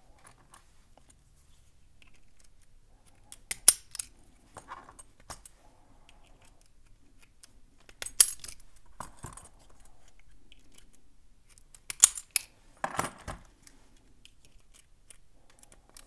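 Sharp metallic clicks and clinks in a few separate groups as a 5-tooth comb pick is worked into brass Master Lock 150 and 160 series padlocks and their shackles pop open, with the keys hanging on the locks jingling.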